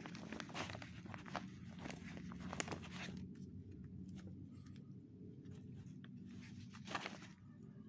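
Crackling and rustling of a banana leaf being folded and rolled by hand around rice, with the sheet beneath it crinkling. The crackles come thick for about three seconds, then thin out, with one more near the end, over a steady low hum.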